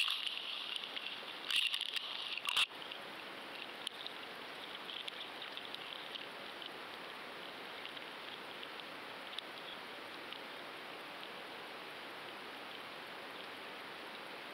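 Steady underwater hiss and rush of water picked up by a GoFish action camera inside its waterproof housing on the seabed. It is louder for the first two or three seconds, with a couple of knocks about two seconds in, then settles to an even hiss.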